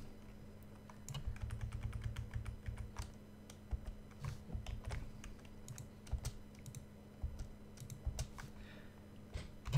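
Typing on a computer keyboard: irregular bursts of keystrokes with short pauses, over a faint steady hum.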